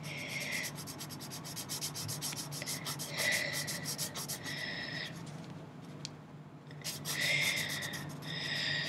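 A pen tip scratching rapidly back and forth across paper as it colours in a drawing, in several bursts of strokes with short pauses between them.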